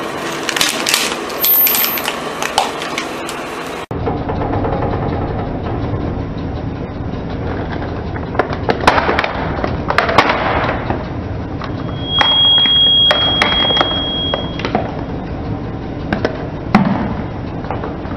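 A car tyre rolling slowly over a toy VW bus and crushing it: a low rolling rumble, then a run of sharp cracks and clicks about nine to eleven seconds in as the toy's body gives way. A high squeal holds for about two seconds after that, and a single thump comes near the end.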